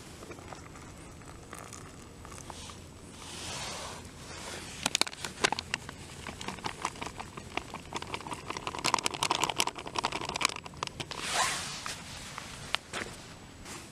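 Opened foil-lined freeze-dried meal pouch crinkling and rustling in the hands. From about five seconds in it is a dense run of sharp crackles, with a louder rustle near the end.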